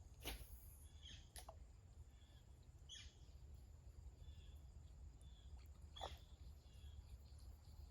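Near silence: faint outdoor ambience with a low background rumble, scattered faint bird chirps, and a few brief swishing or scraping noises about a second apart early on, then again near three and six seconds in.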